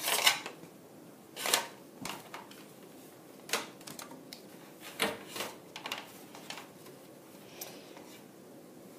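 Cover being worked into place over an LCD TV's power-supply board: a series of sharp clicks and knocks, irregularly spaced, the loudest right at the start.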